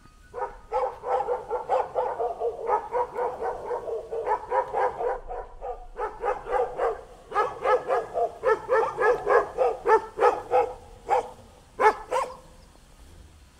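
A dog barking rapidly and over and over, about three or four barks a second, with a short break about five seconds in and a few last barks near the end.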